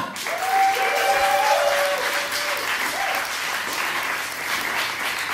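Audience applauding and cheering. A long held shout from one voice rises over the clapping for about two seconds, starting about half a second in.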